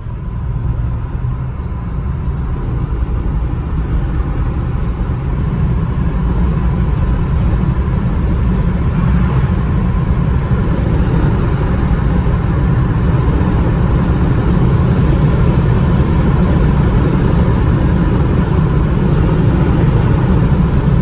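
Engine, tyre and wind noise inside a Fiat 500's cabin as the car speeds up to highway speed. A deep steady rumble grows louder over the first few seconds, then holds steady.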